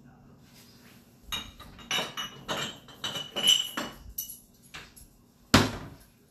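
Glassware and metal utensils clinking and clattering as an iced tea glass is fetched, with one glass ringing briefly. A single loud knock comes near the end.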